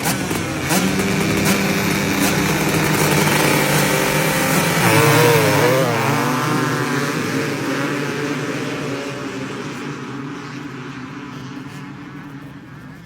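Two-stroke dirt bike engines running hard at high revs. The pitch wavers up and down about five seconds in, then the sound fades steadily as the bikes move away.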